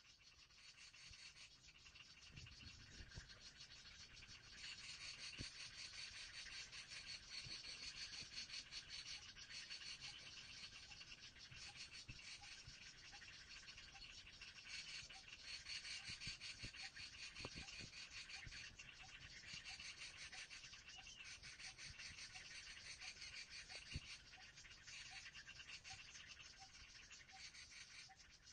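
Faint, steady buzzing of forest insects, with a short note repeating at a regular pace in the second half and a few soft knocks from handling.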